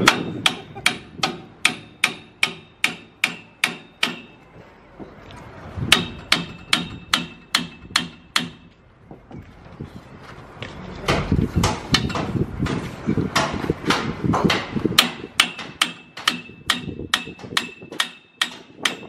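Repeated hammer blows, about three a second, in three runs separated by short pauses, with a brief ringing note after the blows.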